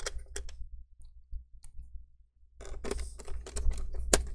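Light clicks and taps of a screwdriver and fingers on a laptop's base as the battery screws are put in. A few clicks come at the start, then a pause of about two seconds, then a busy run of clicking with one sharper click near the end.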